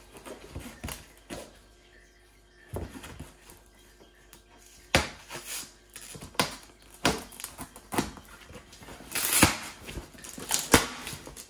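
A cardboard box being cut open with a knife: short scraping and tearing rasps mixed with sharp knocks and clicks, several of them loud near the middle and the end.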